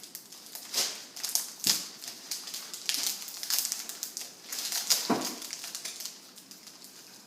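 Rustling and crinkling of a kit's packaging as a paper sail is pulled out of it by hand, in irregular bursts with a few sharper crackles.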